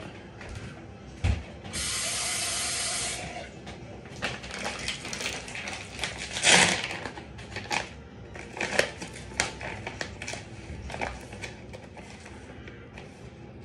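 A metal spoon and a plastic creamer pouch being handled: rustling, clicks and small clinks throughout, with a steady hiss lasting about a second and a half near the start, and a loud crackle about halfway through.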